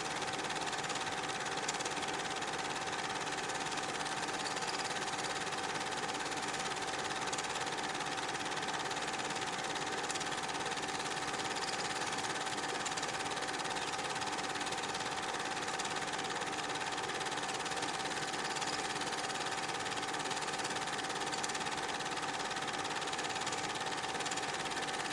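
8mm film projector running: a steady mechanical whir and clatter with a constant hum, unchanging throughout.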